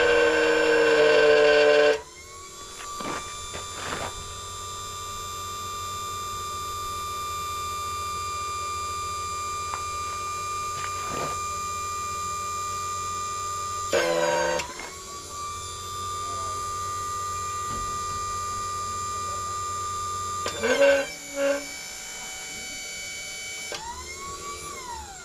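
Electric pump of a hydraulic tube bender running with a steady, multi-tone whine as the ram bends steel tubing. It is louder and lower for the first two seconds, then settles into a higher whine. Twice it breaks into a brief louder clatter before the whine rises back up.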